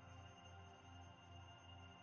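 Faint ambient background music: sustained tones over a low pulsing note, about two and a half pulses a second.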